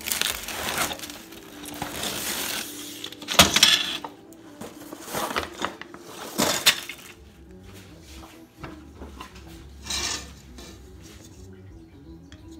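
Packing material and objects being handled right at the microphone: loud crinkling and rustling with two sharp knocks, about three and a half and six and a half seconds in. After about seven seconds the handling becomes quieter, with one more short rustle near ten seconds.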